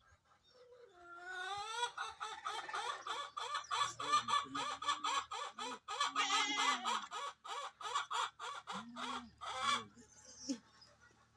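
Farm animals calling in a long run of rapid pulsed cries, about four a second. The calls rise in pitch at the start and die away about ten seconds in.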